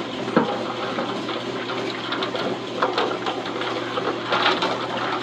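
Wooden paddle stirring horchata and ice cubes in an aluminium pot: liquid sloshing, with ice knocking against the paddle and the pot's side, one sharp knock a little under half a second in.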